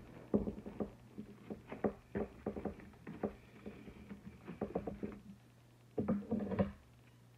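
Wired fabric ribbon rustling and crinkling as fingers pull and shape the loops of a bow, heard as a run of short scratchy handling sounds that stops about five seconds in. A brief louder burst of handling noise follows about six seconds in, over a faint steady low hum.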